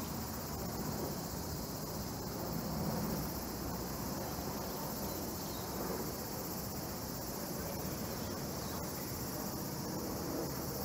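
Jet airliner flying overhead, a steady low rumble that swells slightly about three seconds in, over a steady high chirping of insects.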